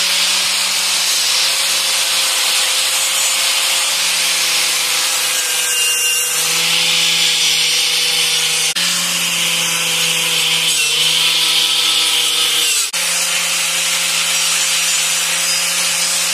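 Corded electric angle grinder running at full speed against a steel lawnmower blade, putting a new edge on it: a steady whine under a harsh, hissing grind of disc on metal. The pitch sags slightly at times as the disc is pressed into the edge, and the sound dips briefly twice.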